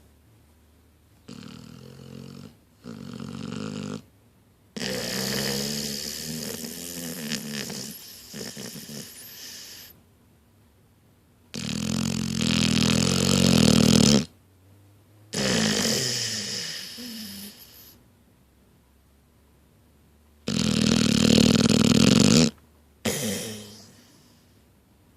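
Blue-nose pit bull puppy snoring: a series of long, loud snores a few seconds each, broken by short quiet pauses, loudest in the middle and near the end.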